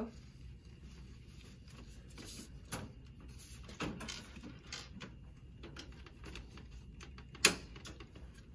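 Hospital bed side rail being raised: a few light clicks and sheet rustles as it is handled, then one sharp click about seven and a half seconds in as the rail latches up.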